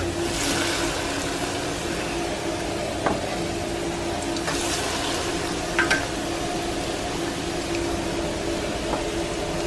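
Hot oil sizzling and bubbling in a saucepan as Hot Cheetos-crusted mozzarella sticks are lowered in with tongs. The sizzle surges near the start and again about halfway, with a few light clicks and a steady low hum underneath.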